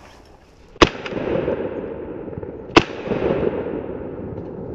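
Two shotgun shots about two seconds apart, fired at a flying mallard, each followed by a lingering rumble.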